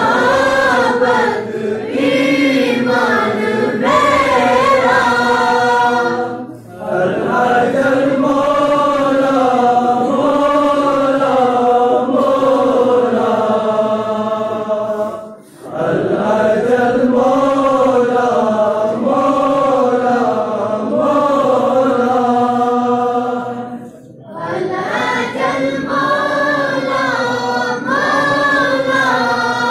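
Group of boys chanting a Shia devotional tarana in unison into a microphone, unaccompanied, in long sung phrases with a short break for breath about every nine seconds.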